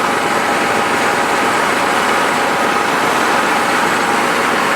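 Vehicle engine running steadily at low speed while towing a truck on a chain, with an even rush of noise as heard from inside the cab.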